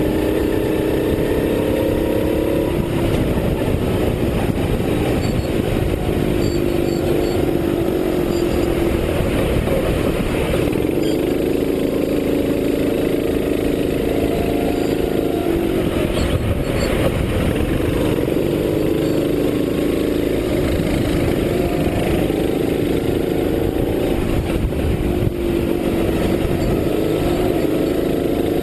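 Racing kart engine heard from onboard under load, its note climbing on the straights and dropping back each time the driver lifts for a corner, several times over, with a steady rush of noise beneath it.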